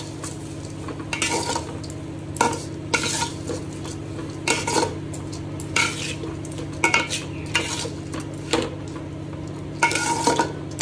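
A spoon stirring rice and chicken into fried masala in a cooking pot, scraping the pot about once a second, with a light sizzle.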